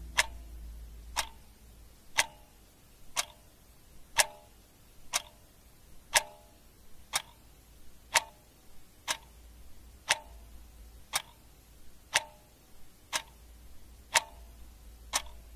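Clock ticking steadily, about one tick a second, each tick with a short ringing tone.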